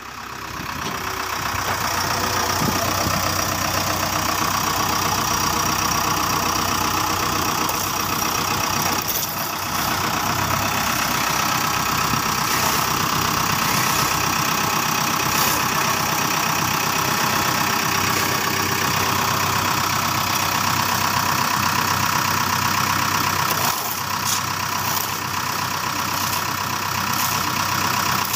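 Battery-powered toy excavator running its arm motor, a steady engine-like whirr, with a few short clicks along the way.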